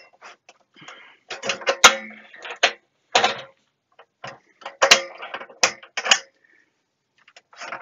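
Metal case of a C1-93 oscilloscope being slid off its chassis and handled: scraping and rattling, with several sharp metallic clanks and knocks, the loudest about two seconds in and three more between five and six seconds in.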